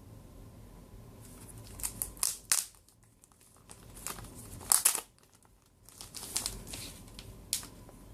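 Packaging being handled and opened: irregular crinkling and rustling in bursts, with a few sharp tearing-like rustles, the loudest about five seconds in.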